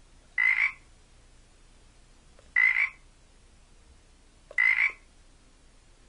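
Frog ribbit sound effect standing in for a cough, croaking three times about two seconds apart, each croak short and high-pitched.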